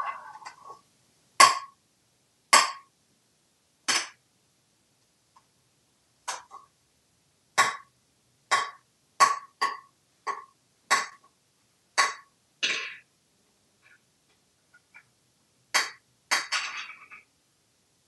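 A hard plastic toy nest knocking and clattering on a marble ledge as an African grey parrot picks it up and drops or tips it. About a dozen sharp knocks come at uneven intervals, each with a brief ring, and there are a couple of short rattling clatters.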